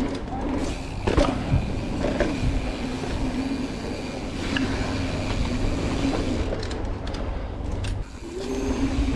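Mountain bike rolling along a dirt singletrack, heard from a GoPro on the rider: wind rushing over the microphone and tyres on dirt, with scattered knocks and rattles from the bike over bumps.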